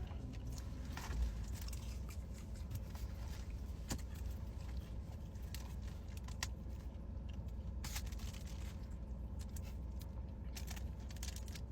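Eating sounds from a chicken-wing meal: scattered short clicks and crackles of chewing and handling food and containers, over a steady low rumble.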